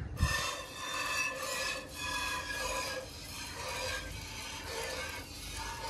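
A cow being milked by hand into a steel bucket: squirts of milk hit the metal pail in a steady rhythm of strokes about a second apart, with a ringing tone.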